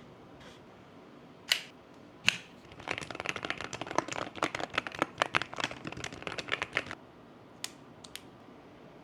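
Keychron K2 HE keyboard with Hall-effect magnetic switches: two sharp clacks, then about four seconds of rapid typing on the keys, and a couple of lone key presses near the end.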